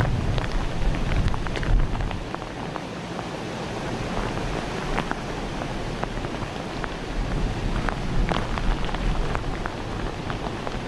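Rain falling steadily, with many small drop taps over a steady hiss, and wind rumbling on the microphone, strongest in the first couple of seconds.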